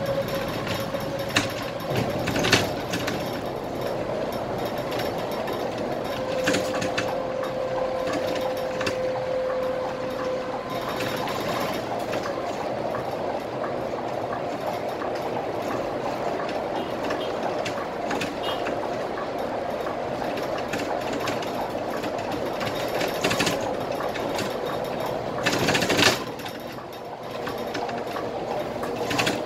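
Cabin noise of a Scania K320IA articulated bus under way at speed: steady engine and road noise with fast rattling from the interior. A steady whine sits over it for about the first ten seconds, with a few knocks early and a brief louder rush near the end.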